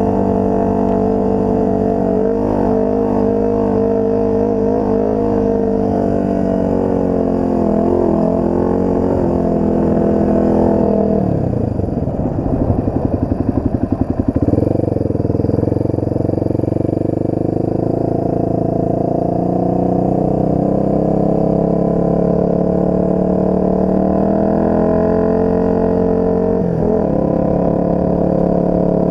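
Off-road vehicle engine running under way with a steady drone. About eleven seconds in its note drops into a slow, pulsing low-rev lug for a few seconds, then climbs back and holds.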